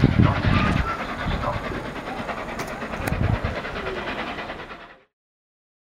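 Flying Scotsman special train running through the station, a steady rumble with rhythmic wheel clatter and heavy low thumps near the start and about three seconds in, with crowd voices underneath. The sound cuts off abruptly about five seconds in.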